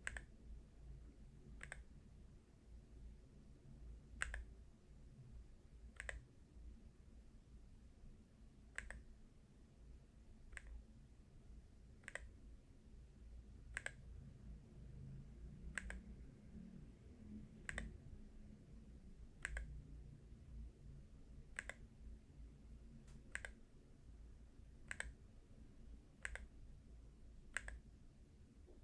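Single key presses on an AULA Hero68HE Hall-effect magnetic-switch keyboard, one faint click roughly every one and a half to two seconds.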